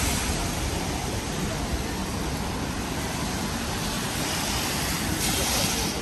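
Steady hiss of rain and road traffic on a wet city street, with a brief louder hiss a little after five seconds in.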